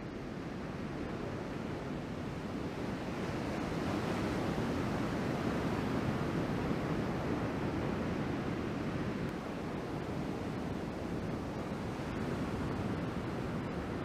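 Ocean surf breaking on the beach, a continuous rush of waves from a typhoon swell. It swells louder a few seconds in as a set breaks, then eases.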